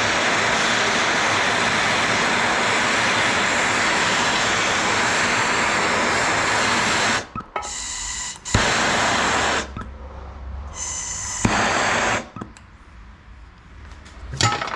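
A gas torch flame hissing steadily for about seven seconds, then cutting in and out in shorter bursts. The torch is heating a cracked aluminum rim so that repair rod will melt into the crack.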